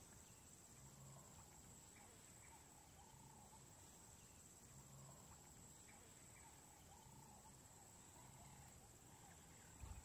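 Near silence: faint outdoor ambience with a thin, steady high-pitched tone.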